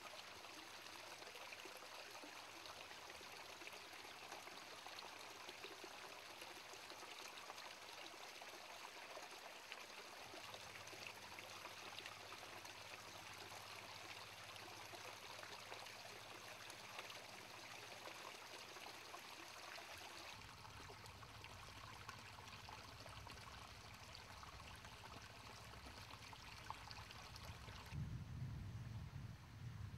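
Faint, steady trickle and splash of a small cascade of water running over rock into a pool. A low rumble comes in near the end.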